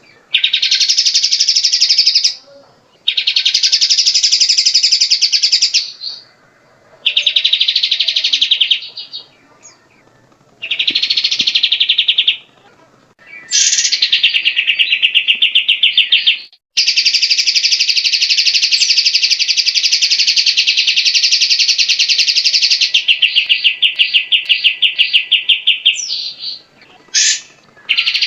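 Grey-cheeked bulbul (cucak jenggot) singing loud, rapid trilled phrases of two to three seconds each, with short pauses between them. Past the middle one long phrase runs about nine seconds and breaks into separate choppy notes near the end.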